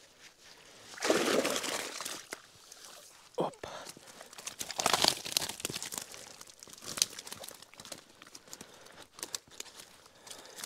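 A wet fishing keepnet full of fish being hauled out of the water and laid on a plastic sheet, the plastic crinkling and rustling in irregular bursts, loudest about a second in and again about five seconds in, with scattered small clicks.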